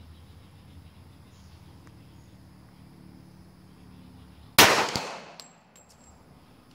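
A single shot from an STI Apeiro pistol about two-thirds of the way through, with a short echoing tail. A fainter sharp crack follows a split second later.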